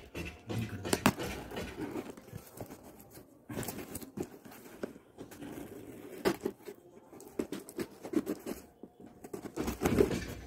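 A knife blade scratching and slitting open a parcel's wrapping, with irregular scrapes and small ticks.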